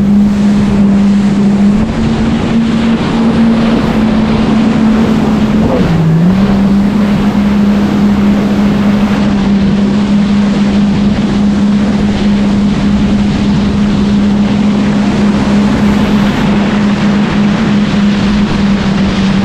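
Jet ski engine running steadily at speed, its pitch dipping briefly about six seconds in and climbing straight back, over a constant rush of wind and water.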